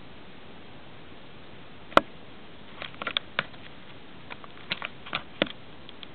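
Scattered sharp clicks and ticks over a steady hiss: one loud click about two seconds in, then two clusters of lighter clicks.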